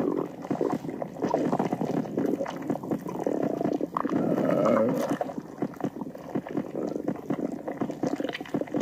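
Stomach gurgling, loud and unbroken, an irregular run of churning liquid sounds that is loudest about four to five seconds in.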